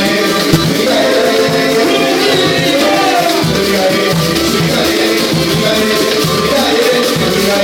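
A samba-pagode band playing, with percussion keeping a steady beat under the melody.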